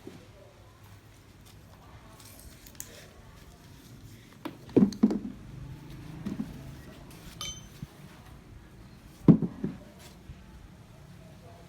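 A few knocks and clinks of metal objects being handled and set down: two knocks close together about five seconds in, a brief ringing clink about seven seconds in, and another pair of knocks a little after nine seconds.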